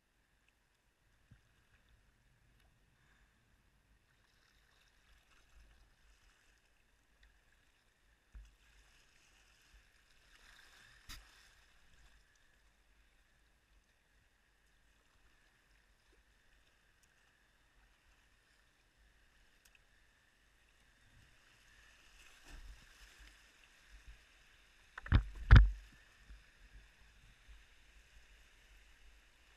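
Faint rushing of river water around a paddled whitewater kayak, with scattered knocks and splashes from paddle strokes, and two loud thumps in quick succession near the end as the boat and paddle hit the water.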